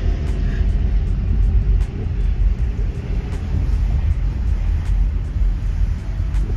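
Steady low rumble of a car driving slowly, heard from inside the cabin, with road and tyre noise.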